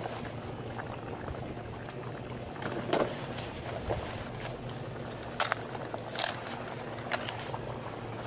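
Large pot of rice and water bubbling on a wood-fired stove, a steady boiling hiss, with a few short crackles and rustles as banana leaves are pressed down over the rice.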